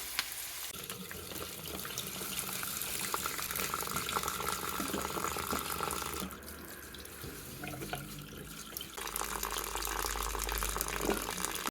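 Water running from a kitchen tap into a sink. The flow eases off about halfway through and runs again a few seconds later.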